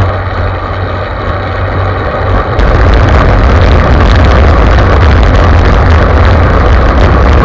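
Wind rushing over the microphone of a camera mounted on a moving bicycle, a heavy low rumble that gets suddenly louder about two and a half seconds in.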